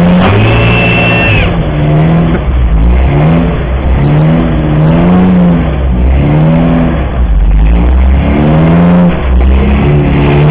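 1988 Toyota pickup's engine revving hard, its pitch rising and falling again and again as the driver works the throttle to crawl the truck up a boulder ledge. A brief high squeal sounds near the start.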